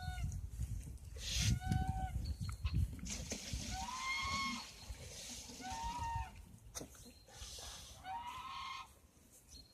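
Piglets squealing: about five short, high calls, one every two seconds or so, with low rustling in between.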